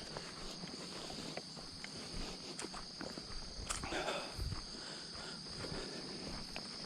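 Footsteps of hikers walking on a trail, with a steady high-pitched insect chorus, crickets, behind them.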